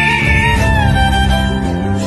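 Background music: held notes over a steady low bass, with a high note sliding down in pitch about two-thirds of a second in.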